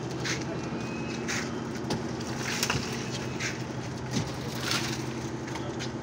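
Diesel engine of a concrete mixer running steadily with a low hum, with short scraping sounds about once a second and a single sharp knock near the middle.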